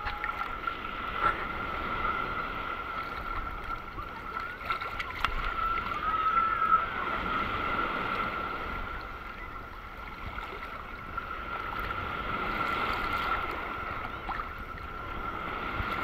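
Small sea waves sloshing and lapping around a camera held at the waterline, muffled, swelling and easing, with a steady thin whine underneath.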